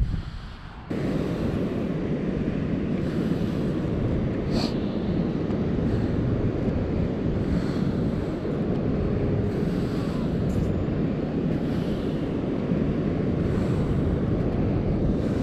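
Wind buffeting a camera microphone: a steady, heavy rumble that starts abruptly about a second in and holds.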